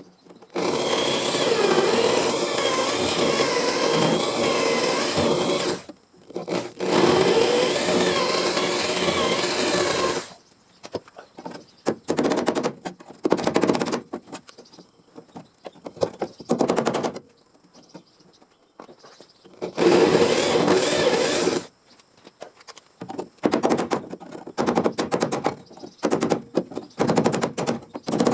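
Welding crackle, plausibly from a MIG welder joining car body sheet metal: two continuous runs of about five seconds each, then a string of short bursts typical of tack or plug welds.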